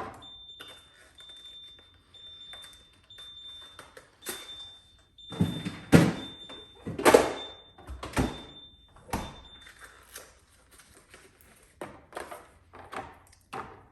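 Refrigerator door-open alarm beeping, a high steady beep about once a second, because the door has been left open; it stops about ten seconds in. Midway, several loud clunks and thuds of plastic bins and items being handled inside the refrigerator.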